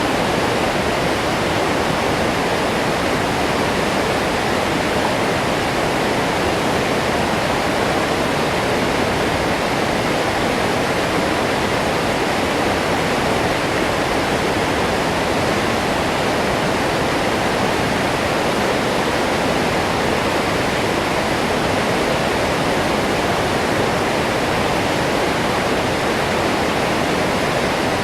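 A medium-sized waterfall pouring steadily, a constant full rushing of falling water.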